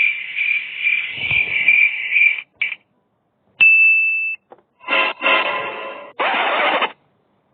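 A string of short comedy sound-effect clips cut together with silent gaps: a pulsing high-pitched buzzing sound, a single steady beep about halfway through, then a few short noisy bursts near the end.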